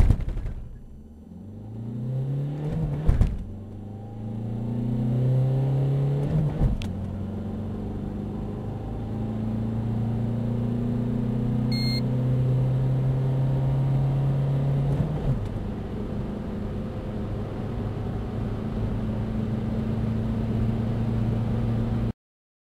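Peugeot 301's 1.6 HDi four-cylinder turbodiesel accelerating hard from a standstill through the gears of its manual gearbox, heard from inside the cabin. The engine note climbs in pitch and drops back at gear changes about 3, 7 and 15 seconds in, then holds nearly steady until it cuts off suddenly near the end.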